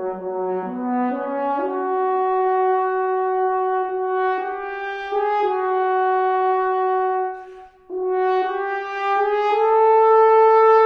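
Solo French horn playing a slow melody: a few low notes climb to a long held note, a breath breaks it about three-quarters of the way through, and the line climbs again to a louder sustained note near the end.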